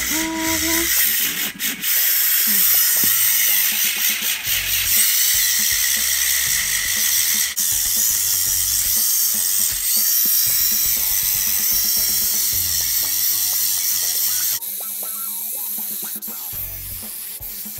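Electric nail drill with a sanding band bit grinding down freshly applied acrylic on fingernails: a steady high whirring grind that drops noticeably in level about three-quarters of the way through. Background music plays underneath.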